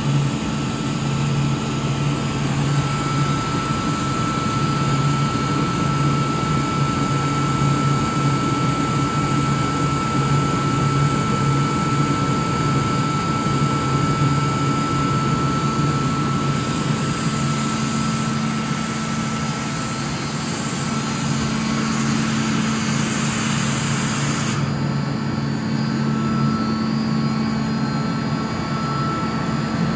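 Atlas Copco GA11FF 11 kW direct-drive screw air compressor running steadily, with a steady high whine and a hiss of air that stops suddenly about 25 seconds in.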